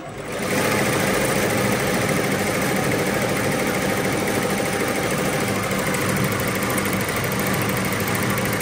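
Two-head ZSK commercial embroidery machine stitching at speed: a steady, rapid mechanical clatter of the needles, coming up to full level in the first half second.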